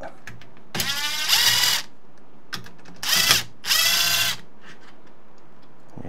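Ryobi cordless drill/driver running in reverse in short bursts, backing screws out of a clamp-on door-lock hole-boring jig: one run about a second in, then two more close together around three to four seconds in.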